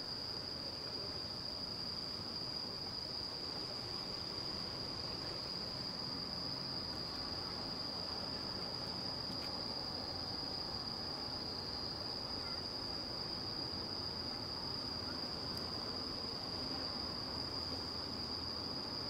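Insects trilling continuously at one high pitch, with a low, even background rumble underneath.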